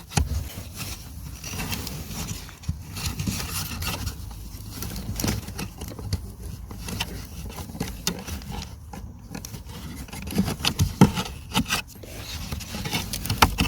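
Plastic and filter media scraping, rustling and clicking as a new cabin pollen filter is worked into its housing slot, with irregular light knocks and a few sharper clicks near the end.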